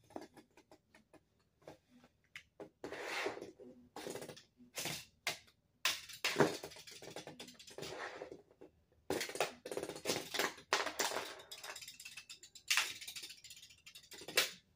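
Two homemade Lego spinning tops clattering against each other as they spin on a hard surface: irregular sharp clicks and knocks of plastic on plastic, with short stretches of scraping.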